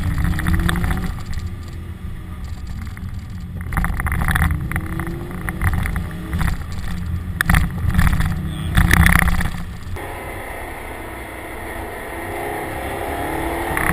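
Car being driven hard on a winding road, its engine note rising several times as it accelerates through the gears over a steady rumble of road noise.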